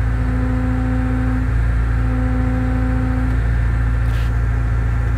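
Liebherr A 918 C wheeled excavator's diesel engine running steadily, heard from inside the cab: a loud low rumble with a humming tone that cuts in and out a few times.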